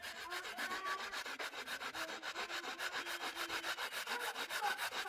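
Fresh coconut being rubbed by hand across a grater: rapid, regular rasping strokes, several a second.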